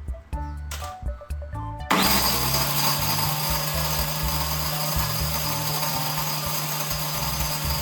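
Homemade corn grinder driven by an angle-grinder motor starts suddenly about two seconds in and runs steadily with a high, even whir and a low hum, over background music.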